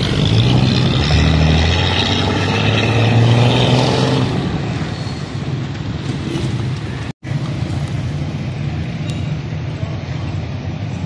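A motor vehicle running loud, with a steady deep hum for about the first four seconds, then settling to a lower, rougher running noise. The sound cuts out for a moment about seven seconds in.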